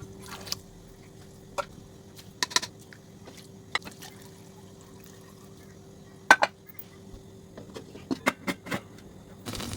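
Kitchenware clinking and knocking: scattered sharp taps of utensils against pots and dishes over a steady low hum, the loudest knock about six seconds in. Shortly before the end a steady hiss begins.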